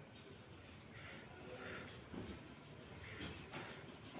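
Crickets trilling faintly: a steady, rapid, high-pitched pulsing that goes on without a break.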